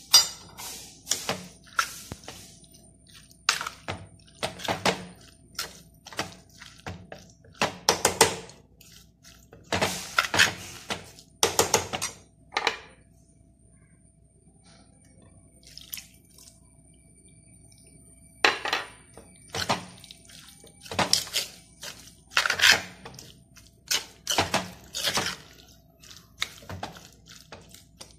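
Steel spoon stirring and scraping anchovies and ground coconut in an earthenware clay pot: irregular scrapes and knocks against the pot, with a pause of a few seconds in the middle.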